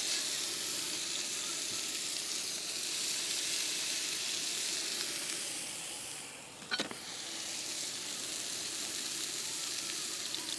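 New York strip steaks searing in avocado oil on a camp-stove griddle: a steady loud sizzle. A short knock comes about two-thirds of the way through.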